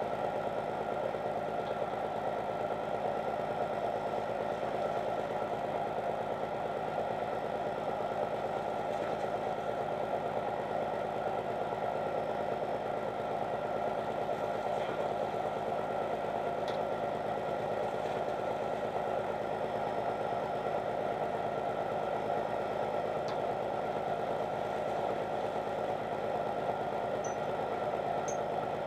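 A fishing boat's engine running steadily: an even, unchanging drone, with a few faint ticks.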